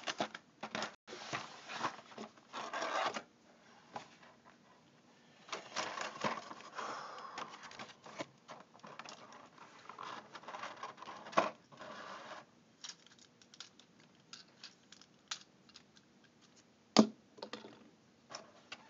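A toy being taken out of its box and packaging by hand: irregular scraping, rustling and scratching with scattered clicks, and a sharper knock a little past halfway and another near the end.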